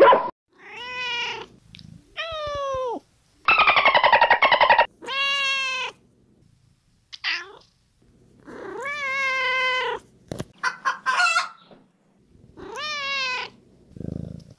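Domestic cats meowing: a string of separate meows with gaps between them, many dropping in pitch at the end. About three and a half seconds in comes one loud buzzy call with rapid pulses, and short chirps and clicks follow around ten seconds in.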